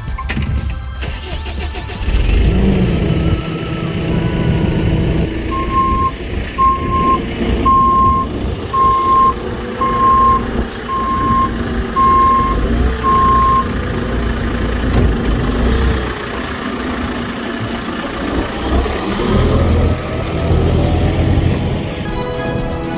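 JCB telehandler's diesel engine running and revving as the machine manoeuvres with a bucket of compost, its reversing alarm beeping about nine times, roughly once a second, through the middle stretch.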